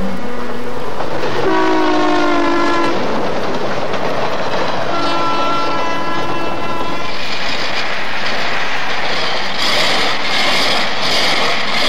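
Diesel locomotive air horn sounding two held blasts, about a second and a half and then two seconds long, over the steady rumble and wheel clatter of the moving train. The rolling noise turns louder and hissier in the last few seconds.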